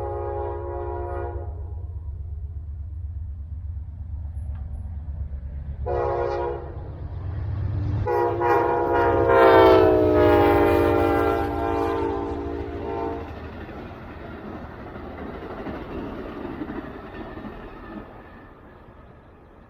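Amtrak Silver Meteor passenger train passing. The diesel locomotive's horn ends a blast about a second in, gives a short blast about six seconds in, then a long blast from about eight seconds that drops in pitch as the locomotive goes by, over the engine's steady low drone. After that, the rush of the passenger cars rolling past fades away.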